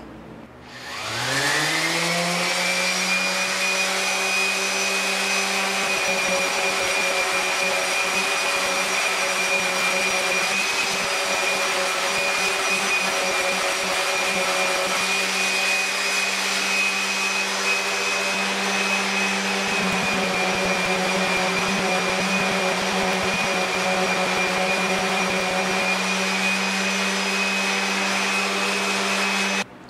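Random orbital sander with a vacuum dust extractor hooked to it, sanding wooden drum hoops: the motors spin up about a second in, then run steadily with a high whine until they cut off just before the end.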